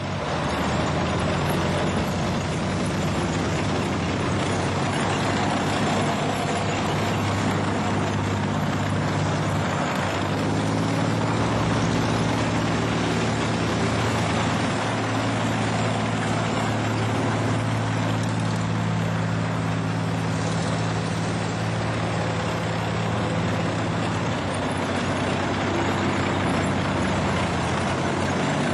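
Heavy military vehicles on the move, their engines running steadily under a constant loud noise, with the engine note strongest in the middle stretch.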